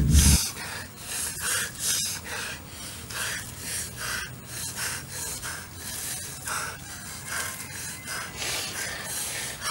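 Hands scraping and rustling through dry leaves and soil in short rasping strokes, about two a second.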